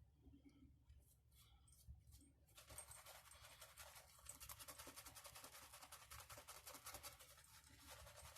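Shaving brush working shave-soap lather: a faint, quick scratchy swishing of bristles, many even strokes a second, starting about two and a half seconds in.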